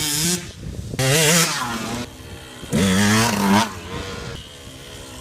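2006 KTM 125 SX single-cylinder two-stroke dirt bike engine, breathing through a Pro Circuit R304 shorty silencer, revved in about three sharp throttle bursts, then running lower near the end.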